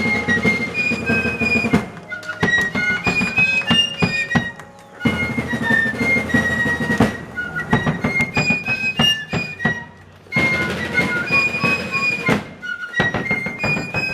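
A fife and drum corps playing a march: fifes in unison carry a high, shrill melody over snare drum rolls and bass drum beats. The drums drop out briefly about three times.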